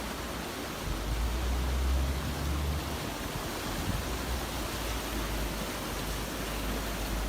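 Steady rushing noise of floodwater, with a low rumble that swells between about one and three seconds in.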